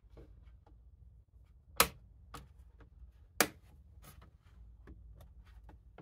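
Sharp plastic clicks of a ThinkPad P14s Gen 5 laptop's bottom cover snapping loose from its clips as it is pried off by hand: two loud snaps about a second and a half apart, with lighter ticks between.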